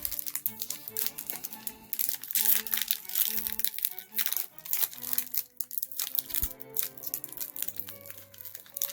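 Crinkling and crackling of foil Pokémon booster-pack wrappers being handled and torn open, over background music with held notes.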